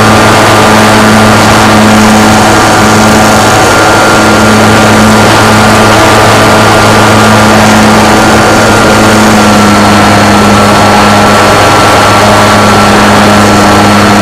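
Model aircraft's motor and propeller running steadily at one unchanging pitch, loud and close as picked up by the onboard camera.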